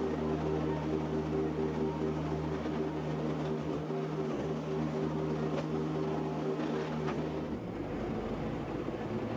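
An engine running steadily at constant speed. About seven and a half seconds in its even hum breaks off into a rougher, lower rumble.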